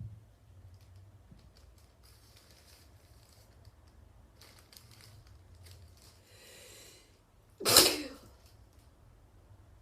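A drawn-in breath followed by a single sharp, loud sneeze about three-quarters of the way through.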